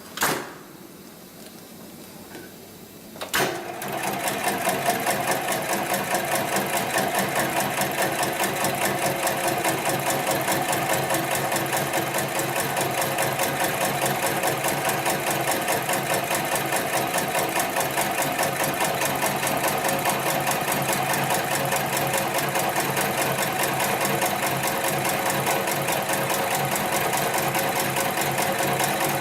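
Extra heavy duty computer-controlled pattern sewing machine: a sharp click just after the start, then about three seconds in the machine starts stitching and runs at a steady rapid stitch rate.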